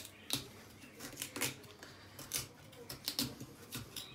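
Black radish being hollowed out: a series of short, irregular cutting and scraping strokes as its flesh is dug out to make a cavity.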